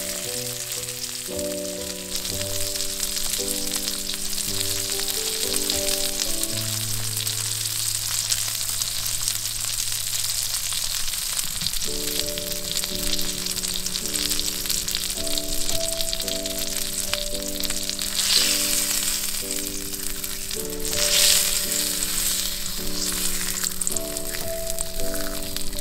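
Food sizzling in hot oil on an iron griddle plate: a steady frying hiss that swells louder twice about two-thirds of the way through. Soft background music with slow chords plays underneath.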